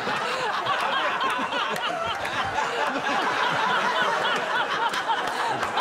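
A studio audience laughing: many voices at once, steady throughout.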